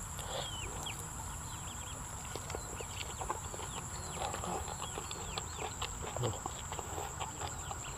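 Chickens calling in the background: many short, downward-sliding peeps and chirps scattered throughout, over a steady high insect drone.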